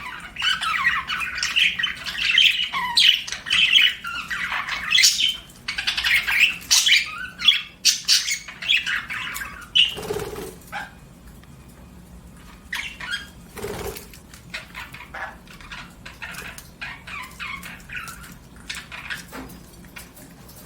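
Budgerigars chirping and chattering in a fast, busy stream for about ten seconds, then thinning to quieter, scattered chirps. Two short soft thuds come midway.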